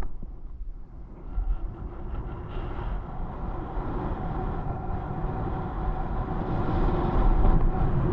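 Skis sliding and scraping over hard, chopped-up packed snow: a steady rumbling hiss from the skis that grows louder toward the end as speed builds.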